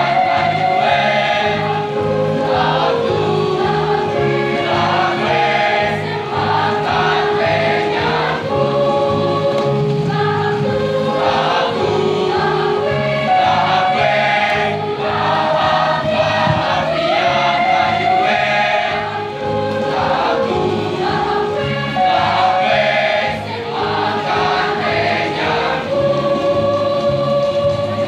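A large mixed choir of boys and girls singing together through microphones and a PA, over a music accompaniment that keeps a steady low beat. The choir holds a long chord near the end.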